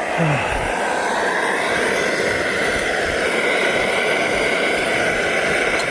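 Backpacking stove burner running with a steady, loud rushing hiss that swells up at the start and then holds even.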